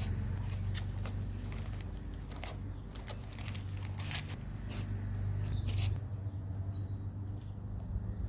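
Short, irregular scraping and rustling sounds from spray paint art tools and materials being worked, over a steady low hum.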